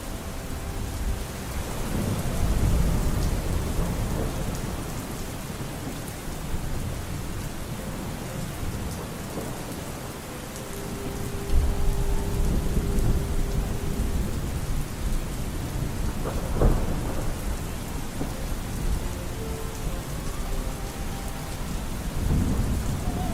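Steady rain with rolling thunder: a low rumble swells a couple of seconds in and again about halfway through. Underneath are faint, held notes of muffled distant music.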